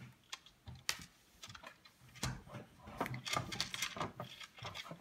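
A few light, irregular clicks and taps of wood on wood: a wooden chess piece and fingers against a wooden chessboard.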